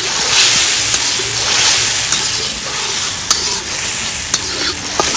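Blended chili and lemongrass mixture sizzling as it is stir-fried in hot oil in a wok, being cooked down into a thick paste. The hiss swells and fades as it is stirred, with a few short sharp clicks.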